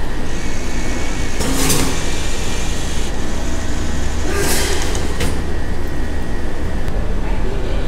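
Popiah vending machine running through its heating cycle: a steady low hum with a thin steady whine over it, broken by short bursts of hiss about a second and a half in and again around four and a half seconds.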